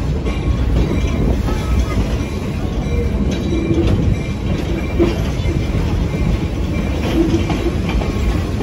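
Passenger train rolling along the track, heard from aboard: a steady loud rumble and rattle of the wheels on the rails, with a few faint, brief squeals.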